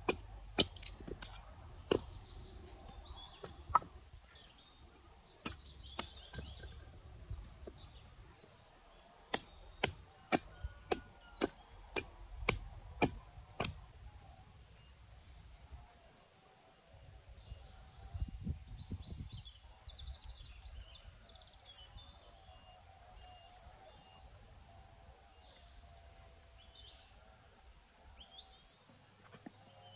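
Repeated sharp chopping strikes on wood, about one to two a second, which stop about halfway through. Small birds chirp faintly over a low wind rumble.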